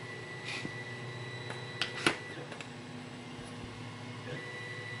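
Two sharp light clicks about two seconds in, the second one louder, over a steady high-pitched whine and low hum.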